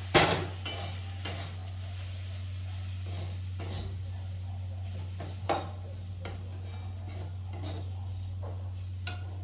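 A cooking utensil stirring food in a pan, knocking and scraping against the pan a few times at irregular intervals, with a faint sizzle and a steady low hum underneath.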